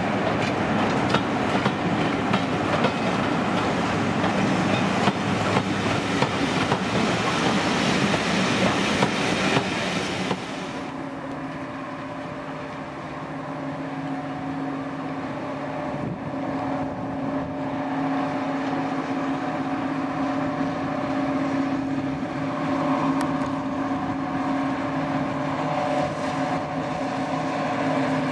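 Class 55 Deltic diesel locomotive hauling a train of coaches past, the wheels clicking over the rail joints. About ten seconds in it changes to the steady, even-pitched running of a Deltic's Napier two-stroke diesel engines as the locomotive stands or moves slowly.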